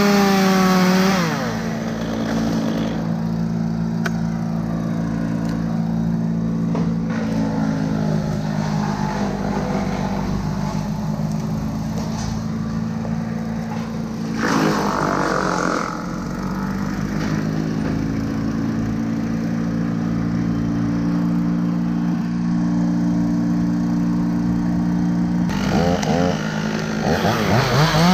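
Two-stroke chainsaw idling steadily. It is revved and let back down about halfway through, and revved up again near the end.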